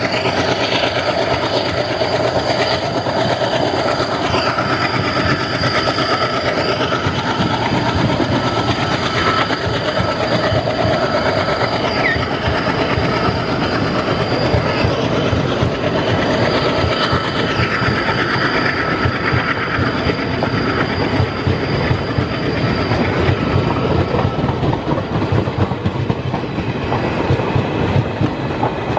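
Passenger train coaches passing close by at speed: a steady rolling roar with rapid clickety-clack of wheels over rail joints, and a thin wheel squeal that comes and goes.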